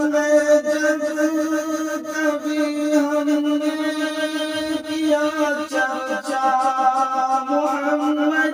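Musical interlude of an Urdu naat: layered voices humming and holding long notes, with no sung words; the notes change a little past halfway.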